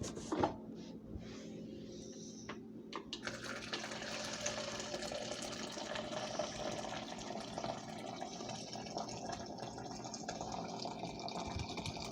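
A few light knocks, then water starts running steadily about three seconds in, as from a tap.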